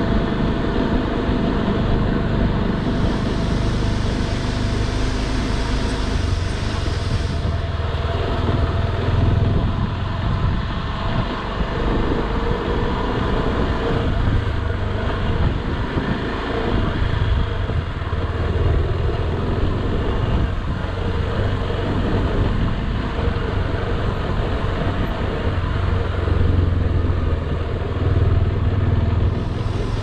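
Single-cylinder adventure motorcycle running steadily while being ridden, its low engine rumble mixed with riding noise on the mic.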